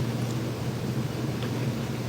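Steady low hum with an even hiss of a running motor or pump, with no change over the two seconds.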